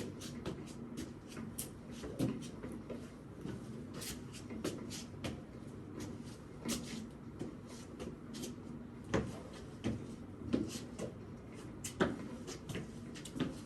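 Irregular light knocks and clicks, a few of them sharper, over a steady low hum.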